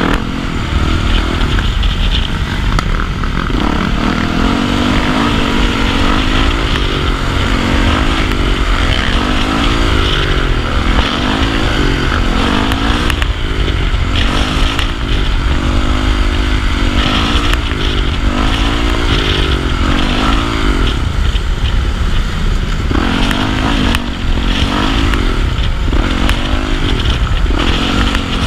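Motorcycle engine on the move, its pitch climbing and dropping over and over as the throttle is opened and eased off, over a constant low rumble.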